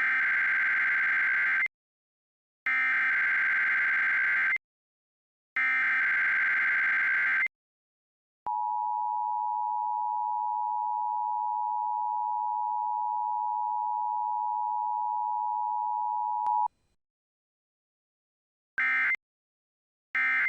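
Emergency Alert System (SAME) broadcast tones: three digital header bursts of about two seconds each, then a steady alert tone held for about eight seconds, then the short end-of-message data bursts starting near the end. They mark a weekly test of the NOAA Weather Radio warning alarm.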